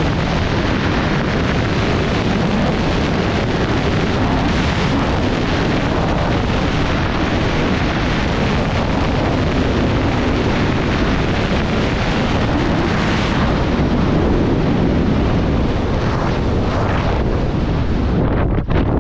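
Strong wind buffeting the body-mounted camera's microphone during a high-speed wingsuit flight, a loud steady rush with low rumble. Near the end the rush starts to break up in short dropouts.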